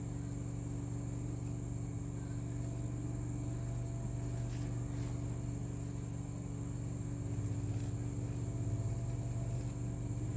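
A steady low hum with a constant high-pitched tone above it, unchanging throughout.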